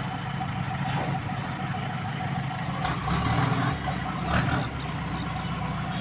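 JCB 3DX backhoe loader's diesel engine running steadily as the machine pushes earth with its front bucket lowered, a little louder for a moment about three seconds in. Two short knocks come about three and four and a half seconds in.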